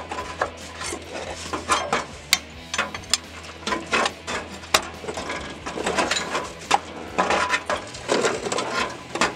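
Steel pry bar scraping and clinking against the inner CV joint at a Toyota Tacoma's front differential, working it against the circlip that holds the joint in. It makes irregular metal clicks and short scrapes.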